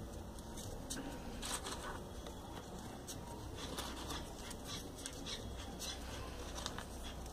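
Faint rustling and light clicks of folded paper origami units being pushed into one another's pockets, a few scattered ticks over a low steady hum.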